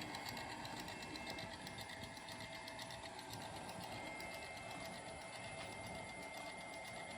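Homemade lathe/mill machine running steadily under its motor, with a steady whine and a fast, even ticking from the turning spindle and drive.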